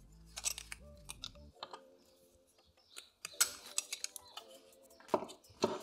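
Scattered light clicks and taps of small plastic speaker parts being handled: a Kicker tweeter being pressed into its plastic mounting bracket.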